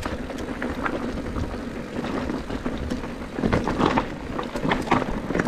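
Electric mountain bike rolling over a rocky dirt trail: tyres crunching on stones and the bike rattling, an uneven run of clicks and knocks, strongest a little past the middle.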